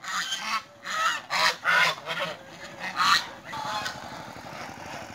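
A flock of domestic geese honking: a quick string of loud honks over the first three seconds or so, which then dies away into a steady background hiss.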